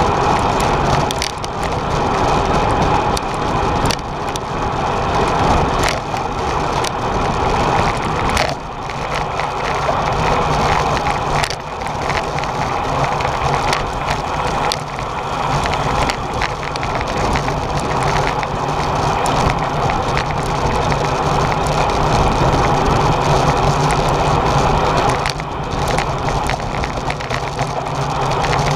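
Steady rush of wind and tyre noise from a racing bicycle riding in a road-race peloton, heard on the rider's camera, with small rattles and clicks from the bike over the tarmac.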